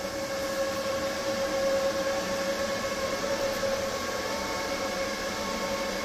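Steady electrical hum and whine from EG4 solar inverters running near full load, a fixed mid-pitched tone with higher overtones over a fan-like hiss.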